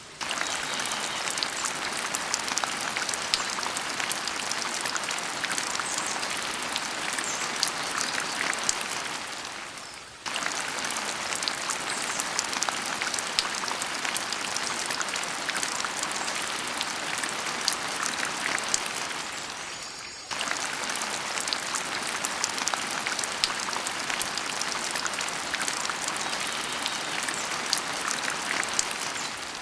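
Rain falling as a steady hiss full of small drop clicks. It fades down and cuts back in abruptly about every ten seconds, like a looped rain recording.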